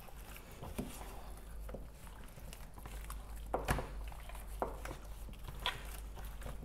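A gloved hand rubbing olive oil and seasoning into raw spatchcocked chickens in a plastic tub: soft wet squishing of the skin with a few short slaps, the sharpest about three and a half seconds in.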